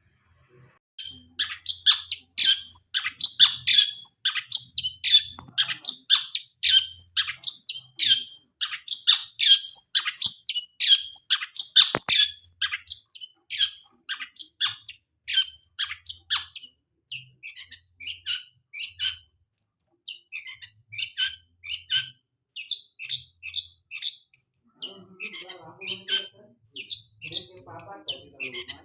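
Long-tailed shrike (cendet) singing a fast, unbroken run of short, sharp chirping notes, a few each second, starting about a second in. This is a lure song meant to set a caged cendet singing. A lower, rougher sound joins near the end.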